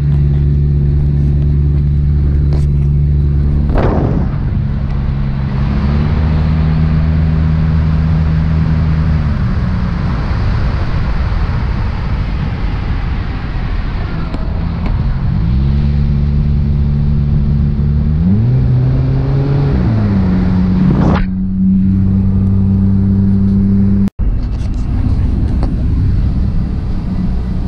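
Car engine heard from inside the cabin while driving, its pitch sliding up and down a few times as the speed changes. Loud wind and road noise rushes over it for most of the stretch.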